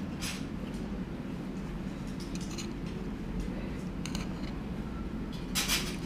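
Metal chopsticks clicking and scraping against a metal plate while picking up food, a few short sharp clicks with the loudest cluster near the end, over a steady low hum.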